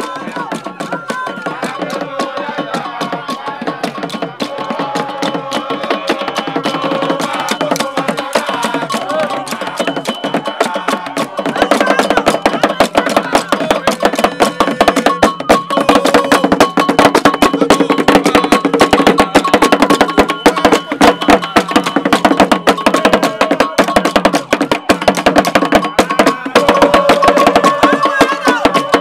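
Several small skin-headed hand drums played with curved sticks and hands in a fast, dense rhythm, with crowd voices alongside. The drumming grows louder and fuller a little under halfway through.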